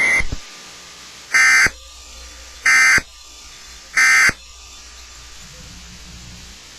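Emergency Alert System end-of-message (EOM) data bursts: three short, shrill digital squawks about 1.3 seconds apart, the coded signal that closes an EAS broadcast. A steady low hiss lies between them.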